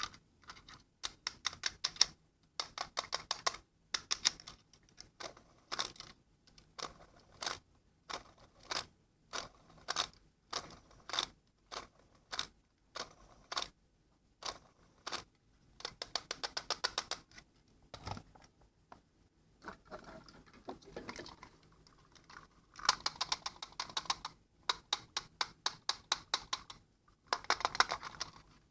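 Rapid sharp clicking and clattering of small hard objects, in repeated short bursts separated by brief pauses.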